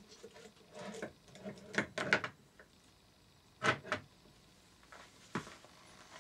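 A few short clicks and knocks of parts and tools being handled while the rear cam chain guide of a Yamaha XT600 engine is fitted, in small clusters about two seconds in and near four seconds in, with one more knock near the end.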